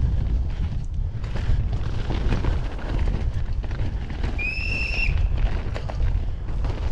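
Downhill mountain bike ridden fast down a dirt forest trail: heavy wind rumble on the rider's camera microphone, with the bike rattling and knocking over ruts and roots. A short high squeal comes about four and a half seconds in.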